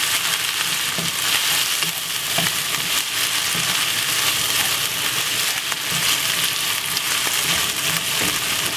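Tuna, sweet corn, onion and peppers sizzling steadily in oil in a nonstick wok while a wooden spatula stirs and scrapes through them.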